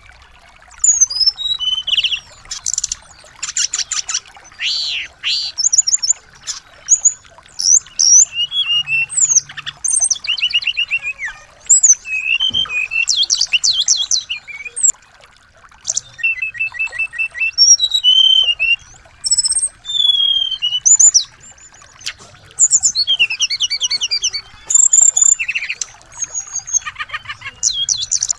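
Small songbirds chirping, trilling and whistling in quick, varied, overlapping phrases, with short pauses between bursts.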